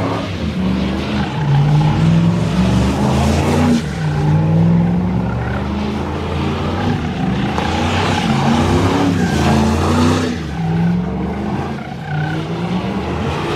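Pickup truck spinning donuts: the engine revs up and down repeatedly, its pitch rising and falling several times, over the screech of the rear tyres spinning on the pavement.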